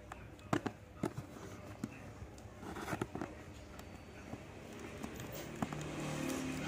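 Fingers and nails picking and tapping at a cardboard box flap: a run of scattered clicks and light scrapes. A low engine hum comes in about two-thirds of the way through and grows louder.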